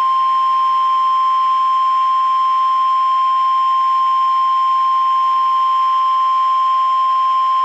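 Emergency Alert System attention tone: a single steady, loud tone of about 1 kHz (the 1050 Hz weather-warning alert tone), held unbroken over faint broadcast hiss. It marks the start of a severe thunderstorm warning.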